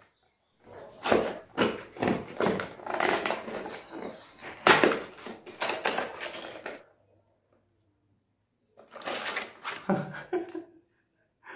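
A cardboard parcel being opened by hand: a key scraping along the packing tape and the box flaps ripped open, a long run of dense scratching and tearing noises. After a short pause, a briefer burst of handling noise near the end.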